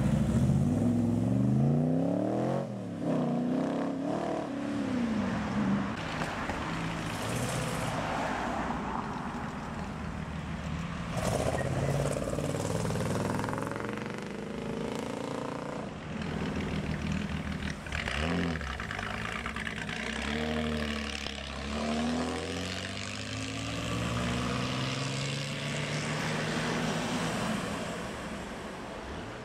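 Cars' engines pulling away one after another, loudest at the start where a Cobra replica roadster accelerates off, its engine note rising in pitch several times through the gears; further cars accelerate past more quietly later, with rising engine notes at intervals.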